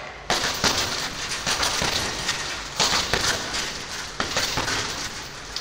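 Punches landing irregularly on an Everlast heavy bag, several sharp hits a few seconds apart over a steady hiss.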